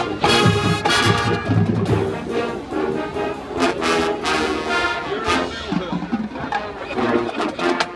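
Marching band playing: brass sounding chords over repeated drum and percussion hits.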